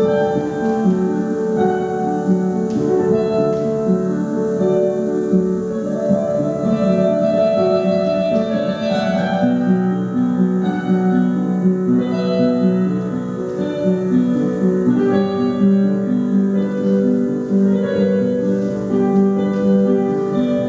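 Piano music with slow, held chords and a melody over them, the kind played as accompaniment for ballet barre exercises.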